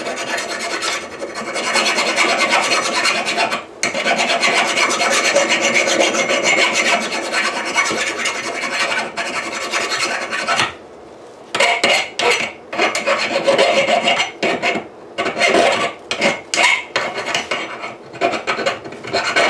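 Hand file rasping across the edges of a steel anvil in long continuous strokes, breaking off briefly twice, then in shorter separate strokes over the last part.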